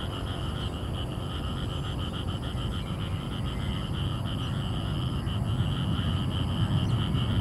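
Distant jet engines of an Airbus A330-300 (Pratt & Whitney PW4000) taxiing onto the runway, a low rumble growing louder toward the end. Over it, insects buzz in a high, rapidly pulsing drone.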